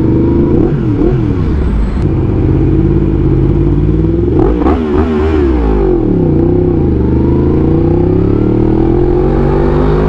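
Yamaha MT-10's crossplane inline-four engine heard from the rider's seat. The revs sag as the bike slows, spike in a quick blip about four and a half seconds in, then climb steadily through the last three seconds as it accelerates hard.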